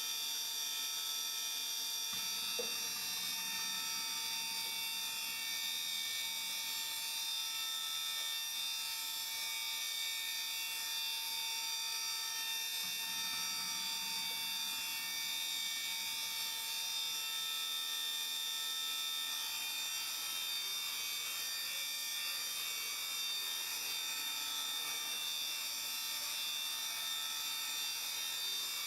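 Haas VF-4 CNC mill's 20 hp two-speed geared spindle running steadily at its top speed of 7,500 RPM: a steady high-pitched whine made of several fixed tones.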